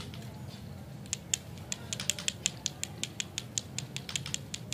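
A quick, uneven series of crisp, light clicks, several a second, starting about a second in, over a low steady hum.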